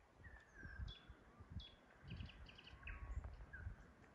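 Faint songbirds calling from the waterside vegetation: scattered short whistled and slurred notes, with a quick run of repeated short notes a little after two seconds in, over an irregular low rumble.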